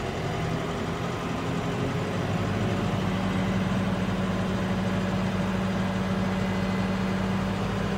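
John Deere 5R tractor's diesel engine running at a fast steady speed while the PTO drives a disc mower. About two and a half seconds in, its pitch and level rise a little as the hand throttle is opened to bring the PTO up toward 540 rpm.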